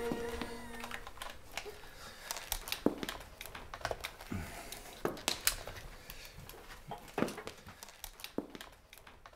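High-heeled shoes walking on a tiled floor: sharp heel clicks at an uneven pace, some with a dull knock, growing fainter near the end. A held musical chord stops about a second in.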